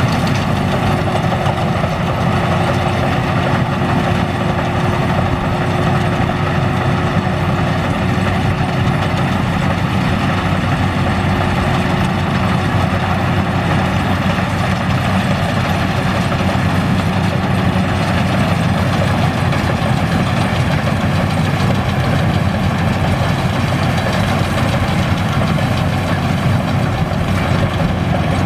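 Combine harvester's engine running steadily and loudly, with a thin steady whine over it for about the first third.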